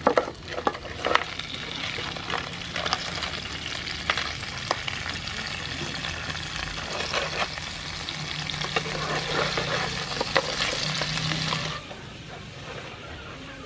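Cut blue crab pieces sizzling in hot oil and garlic in a wok. The shells clatter against the pan as they drop in at first, then give way to a steady, dense sizzle that cuts off suddenly near the end.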